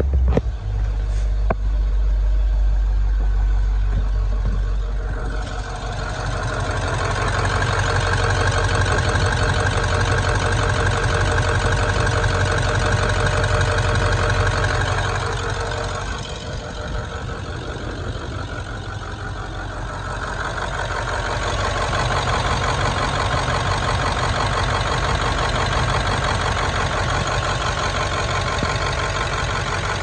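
Turbocharged diesel engine of a 1996 International 3800 school bus idling steadily. It is heard first from the driver's cab, then up close at the open engine bay, where a steady high whine rides over the engine note.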